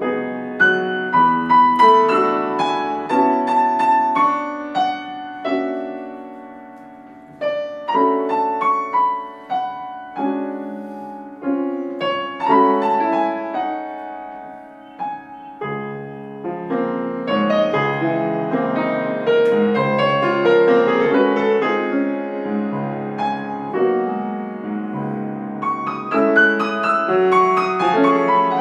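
Solo grand piano playing a danza: a melody over chords, the notes struck and decaying, growing denser and fuller in the middle.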